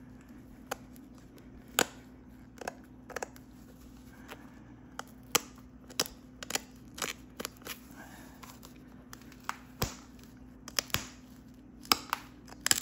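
Heat-treated Flint River chert being knapped: sharp, irregular clicks as small flakes snap off the edge of the point, roughly one or two a second.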